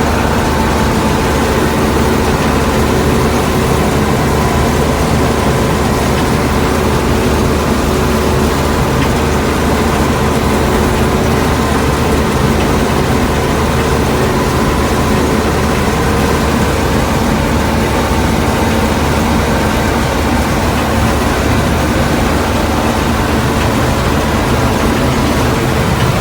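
Combine harvester running steadily, a constant heavy engine drone with a thin steady whine in it.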